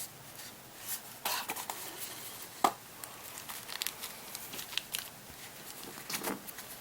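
Packaging and box contents being handled: scattered light rustles and taps, with one sharper click about two and a half seconds in.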